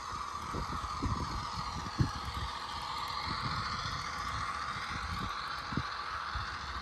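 HO scale Walthers Mainline EMD NW2 locomotive running along the track. Its motor and helical gears give a steady whine whose pitch rises and falls, with irregular low thumps.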